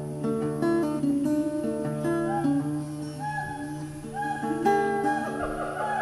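Acoustic guitar music. From about halfway, siamang calls join in: a run of rising and falling whoops that quickens into a dense chorus near the end.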